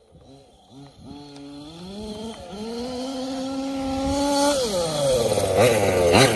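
Losi 5ive-T 1/5-scale RC buggy's Zenoah G320 two-stroke engine, running through a big-bore silenced exhaust, revving higher and growing steadily louder as the buggy approaches. About four and a half seconds in, the pitch drops and wavers, and it is loudest as the buggy comes close near the end.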